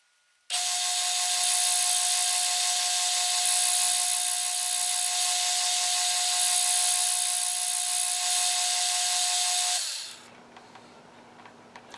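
Metal lathe turning a cast iron backplate while a boring bar cuts its bore: a steady hiss with a steady whine. It starts about half a second in and stops about ten seconds in, leaving a faint low hum.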